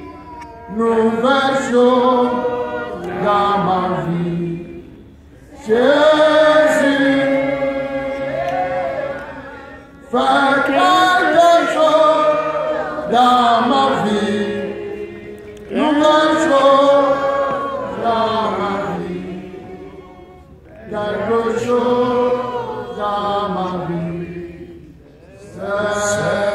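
Voices singing a slow worship chant through a microphone and PA, in long phrases that begin about every five seconds and die away.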